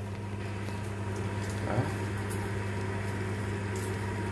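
Steady electrical hum and fan noise of an induction cooktop heating a pot of congee, with a faint high tone running through it. A few soft pops come from the simmering congee.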